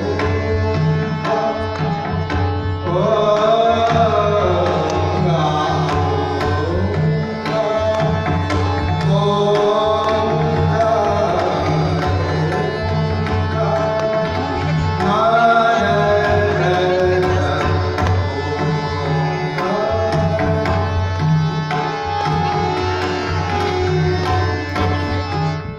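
Live Hindustani devotional singing: a voice singing long gliding phrases over deep pakhwaj drum strokes and tabla, with a steady harmonium accompaniment.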